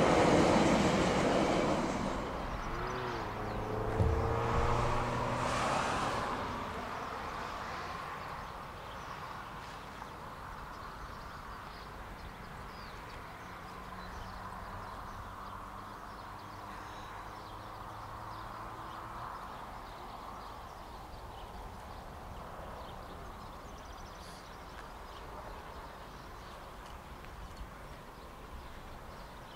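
Steam-hauled passenger train running past and fading into the distance over the first several seconds, leaving a low, even outdoor background.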